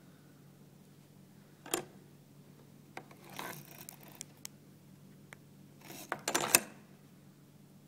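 A plastic TurningPoint voting handset being handled and pulled from its holder beneath a desk: a sharp knock, then scraping and small clicks, then a quick loud cluster of clicks and knocks near the end, over a low steady hum.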